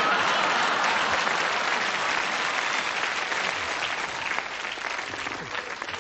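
Audience applauding, loud at first and slowly dying away to scattered claps near the end.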